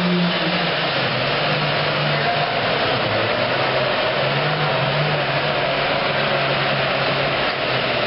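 Super Farm class pulling tractor's turbocharged diesel engine running at full power on a pull: a loud, steady noise with a low engine drone that wavers in pitch.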